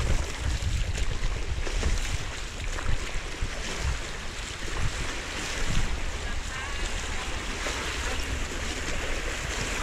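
Fast-flowing floodwater rushing across a road, a steady wash of water noise, with wind rumbling on the microphone.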